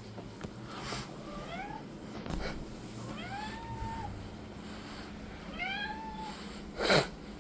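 A domestic cat meowing three times, each call rising in pitch and then levelling off. A short, sharp knock near the end is louder than the meows.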